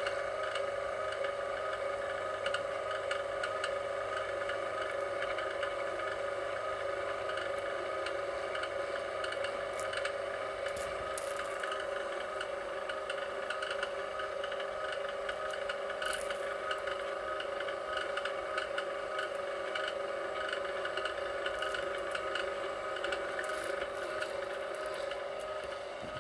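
VEVOR electric wire stripper's motor running steadily as copper wire feeds through it, with scraping and rubbing from the wire and scattered sharp clicks.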